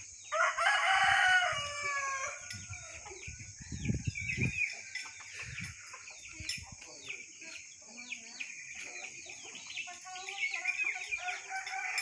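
A rooster crows once, loud and long, starting about half a second in. After it, small birds chirp and chickens cluck, with more clucking near the end, over a steady high drone of insects.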